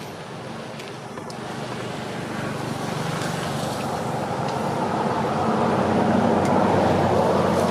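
A motor engine running with a steady low hum and growing steadily louder, as if approaching.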